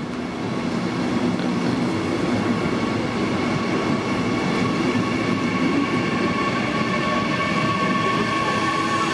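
FEX Flughafen-Express double-deck regional train pulling out and rolling past along the platform: a steady rumble of wheels on rails. A whining tone grows stronger near the end.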